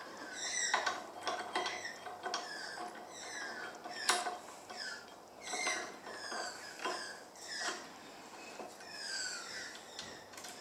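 Small metal screws clicking and tapping as they are set into a mini bench vice, the sharpest click about four seconds in, over short, high chirps that fall in pitch and repeat every half second or so.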